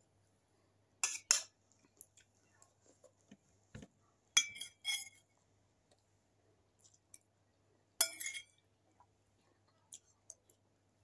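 Metal spoon clinking and scraping against a stainless steel bowl while eating, in three bursts: about a second in, around four and a half seconds in, and about eight seconds in, with the metal briefly ringing each time.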